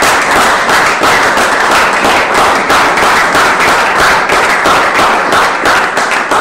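Audience applauding, many hands clapping at once, steady and loud.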